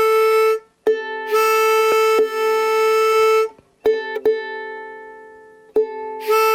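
A pitch pipe sounding a steady A note, alternating with plucks of a ukulele whose first string is being tuned to A to match it. The pipe's held note overlaps the ringing strings and then stops, while the plucked notes die away slowly.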